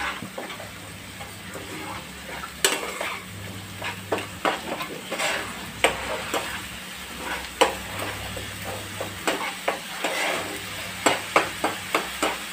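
Steel spoon scraping and knocking against a nonstick frying pan while stirring onion, ginger and garlic paste that sizzles lightly in the oil. The strokes are irregular, with a quick run of taps near the end, over a low steady hum.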